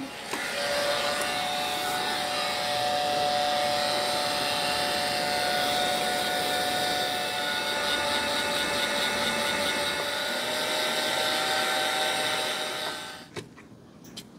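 Handheld electric heat gun running steadily, melting leather preservative into a leather axe mask. It gives a rush of air with a steady whine and switches off about thirteen seconds in.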